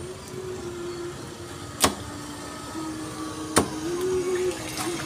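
Two cleaver chops through chicken onto a round wooden chopping block, about two seconds apart, over a steady hum that shifts in pitch.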